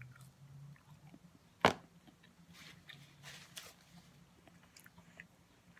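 Close-miked eating sounds: one sharp mouth click or smack a little under two seconds in, then a few faint soft chewing clicks.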